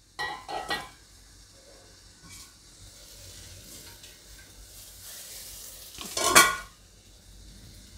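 A spatula scraping and stirring in a kadai of simmering gravy, with a soft sizzle between strokes. A little after six seconds comes one louder clatter of a steel pan.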